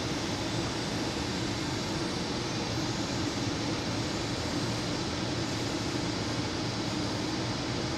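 Steady, unchanging hum of a DB class 101 electric locomotive standing at the platform with its cooling blowers running, heard in an underground station hall.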